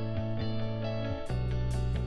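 Background music with plucked guitar-like notes; about a second in, a deeper bass and sharp percussion hits come in.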